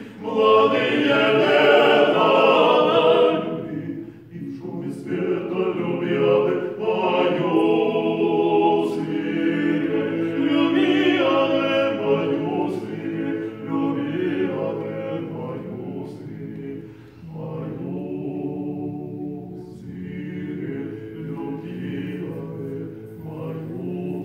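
Male vocal quartet singing a cappella in harmony, a low bass part sustained under the upper voices. Loud for the first few seconds, then softer from about two-thirds of the way through.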